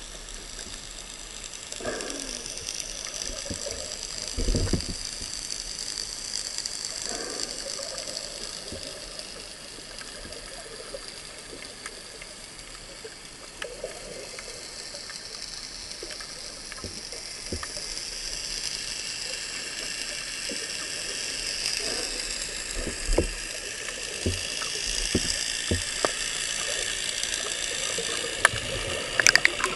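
Underwater ambience picked up by a camera just below the surface: a steady rush and hiss of moving water, with scattered clicks and a few dull knocks, and a burst of clicks near the end.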